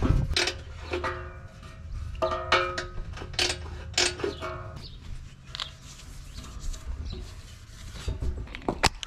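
Stamped steel oil pan clanking as it is handled and knocked with a hand tool: a run of sharp metallic knocks, each followed by a short ringing tone, thinning out about halfway through.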